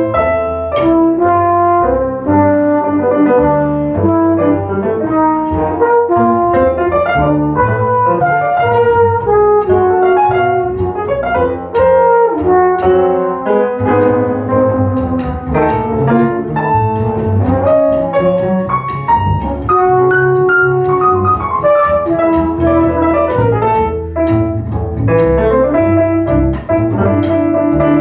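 Trumpet, double bass and grand piano playing together live, the trumpet's lines over the piano and bass, continuously and without a break.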